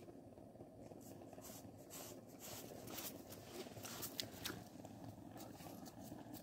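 Faint splashing and sharp little ticks of water and slush as a hand works in an ice-fishing hole, releasing a small lake trout, over a low steady background rumble.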